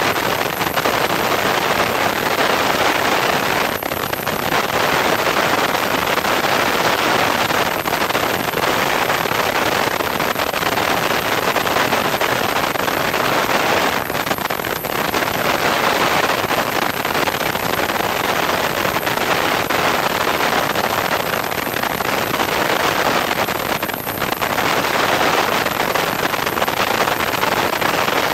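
Loud, steady wind rush on a camera mounted under a Piper Cherokee's wing, over the engine at full power during takeoff and climb-out, with brief lulls about 4, 14 and 24 seconds in.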